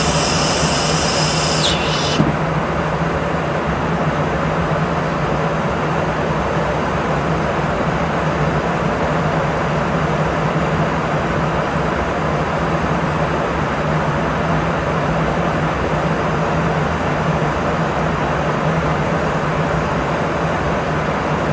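Steady drone of a KC-135 Stratotanker's engines and airflow heard inside the boom operator's pod, with a constant low hum. A high hiss sits on top of it and stops suddenly about two seconds in.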